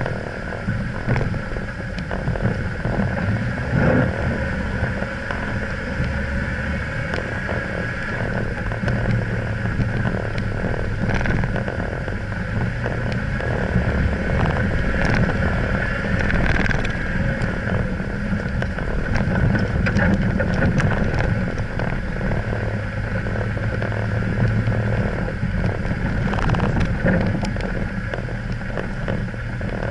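Off-road 4x4's engine running at low, steady speed while crawling over a loose-stone riverbed, with frequent knocks and rattles from stones under the tyres and the bouncing vehicle.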